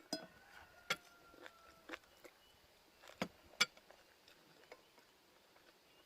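Scattered faint clicks and taps of someone eating, utensils against a plate and dishes, with a faint thin high tone sliding slightly down in the first two seconds.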